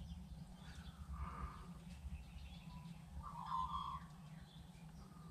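Faint steady low hum, with two short distant animal calls about a second and three and a half seconds in.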